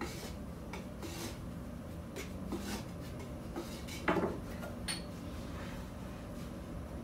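A metal scraper blade knocking and scraping on a floured wooden board as dough is rolled and cut into portions: a run of short scrapes and taps, a louder knock about four seconds in, and a light metallic clink soon after.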